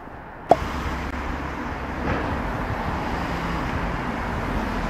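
Town street ambience with road traffic, a steady rumble and hiss that starts abruptly with a click about half a second in.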